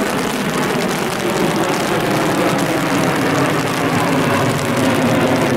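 A steady engine drone with a slowly drifting pitch, growing slightly louder.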